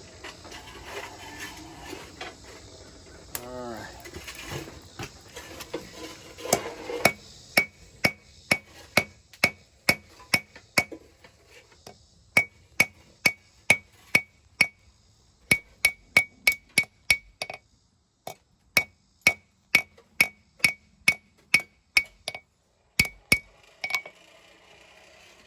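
Hand hammer striking hot steel on an anvil while drawing out a knife tang. From about seven seconds in come steady blows, about two to three a second, in short runs with brief pauses, each blow ringing brightly.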